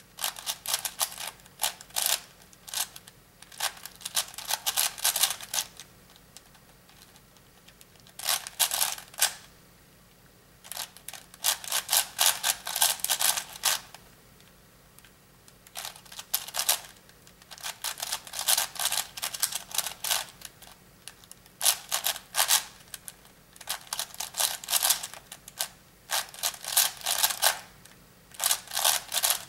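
ShenShou 5x5 speedcube being turned fast by hand: quick runs of plastic clicking and clacking from the layer turns, broken every few seconds by pauses of a second or two.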